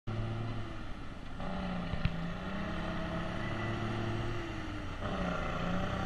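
Diesel engine of a semi tractor pulling a grain hopper trailer, running steadily. Its note changes about a second and a half in and again near five seconds. There is one short click about two seconds in.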